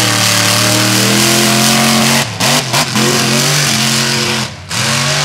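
Mega truck engine held at high revs, cutting out in a few quick stutters about two seconds in, then back on, lifting off once more near the end and revving back up.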